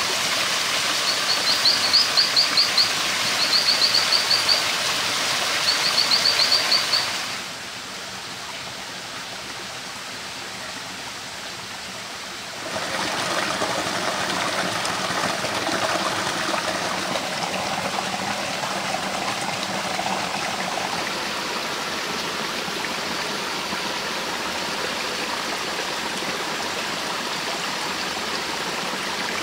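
Shallow forest stream running over rocks, a steady rushing hiss. In the first seven seconds a high, rapid trill repeats several times over it; the water grows quieter about seven seconds in and swells again near the middle.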